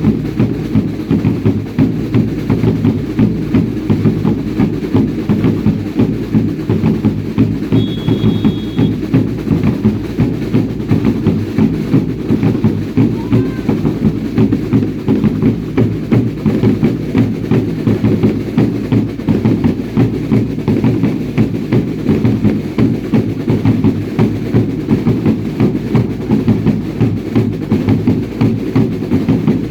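Drums of a baile indio troupe beating a steady, unbroken rhythm with a deep bass-drum pulse.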